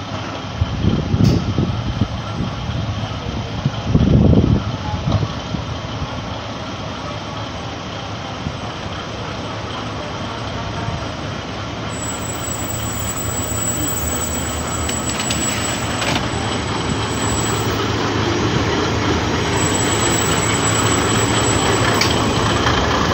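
Japanese KiHa 52 diesel railcar drawing slowly into the station, its twin DMH17-series diesel engines running with a steady low drone that grows louder as the car comes alongside. Two low rumbling thumps come in the first few seconds, and a thin high-pitched squeal comes and goes twice in the second half.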